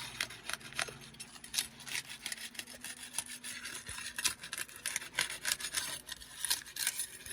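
Asphalt roof shingles being pried up off the course below: a dense run of crackling, scraping clicks as the sealant strip lets go, knocking granules loose from the shingles.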